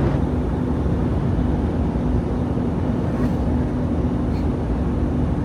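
Semi truck cab at highway speed: steady drone of the diesel engine and road noise with a constant low hum. Two faint light ticks about three and four and a half seconds in.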